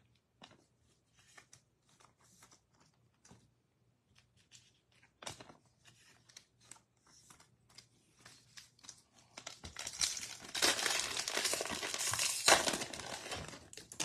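Trading cards handled with faint clicks and slides, then about nine and a half seconds in a trading card pack's wrapper is torn open, crinkling loudly for about four seconds.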